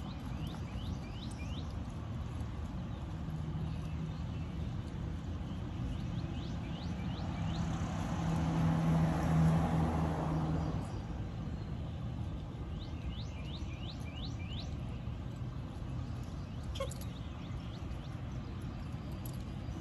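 Outdoor background with a car driving past on the street, its engine and tyre noise swelling and fading away between about eight and eleven seconds in. Small birds chirp in short runs of quick rising notes.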